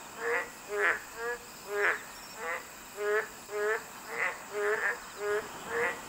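Boreal digging frogs (Kaloula borealis, maengkkongi) calling: short croaks repeating about twice a second, alternating between a lower and a higher call. A faint steady high insect hum lies underneath.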